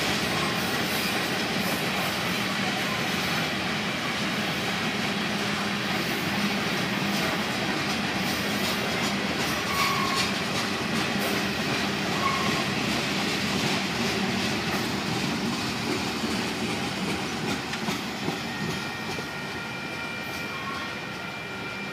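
Freight cars of a mixed manifest train rolling past: a steady rumble and clatter of wheels on the rails, with a few brief squeals, easing off slightly near the end.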